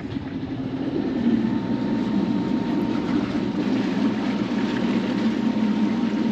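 Sailboat's engine running steadily under way, growing louder about a second in, with a faint steady whine above the rumble.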